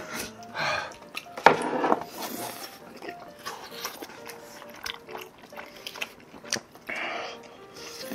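Eating sounds from spicy tteokbokki: wet slurps and chewing of the rice cakes, with sharp clicks of chopsticks against the container. Soft background music plays short notes underneath.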